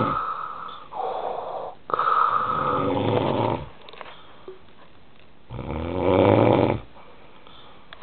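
A man snoring loudly in raspy, Darth Vader-like breaths. Two breaths come back to back about a second in, then a pause of about two seconds before another.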